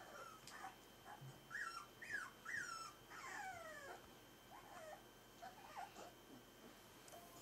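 Four-week-old Berger des Pyrénées (Pyrenean Shepherd) puppies whining: three short, high whimpers that drop in pitch come close together about two seconds in, then a longer whine that slides down, and a few fainter whimpers later.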